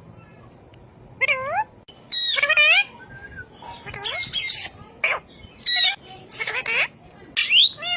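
A pet parrot squawking and calling: a run of about seven short, shrill calls whose pitch slides up and down.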